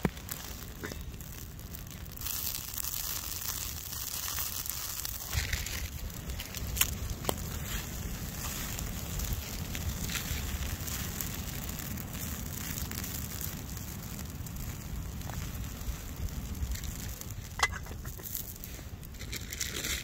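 Wood campfire crackling, with scattered sharp pops and a steady low rumble under it. A stretch of hiss runs from about two seconds in to about six seconds in.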